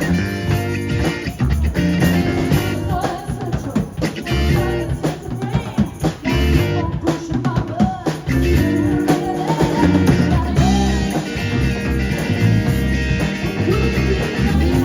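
A rock band playing: drum kit and guitar, with singing.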